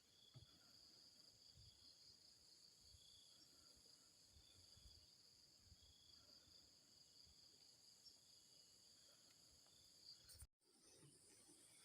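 Near silence with a faint, steady high-pitched insect chorus of crickets, with short faint chirps recurring about once a second. The sound drops out completely for a moment about ten and a half seconds in.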